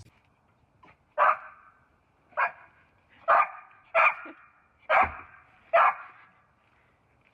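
A dog barking: six barks, roughly a second apart.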